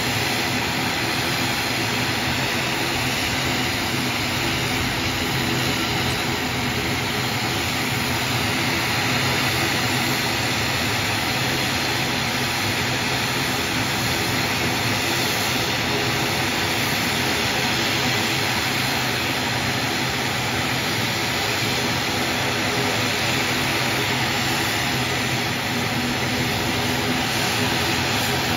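An ATR 72 turboprop running its engines on the ground at low power, propeller turning: a steady engine and propeller drone with several held tones that does not change.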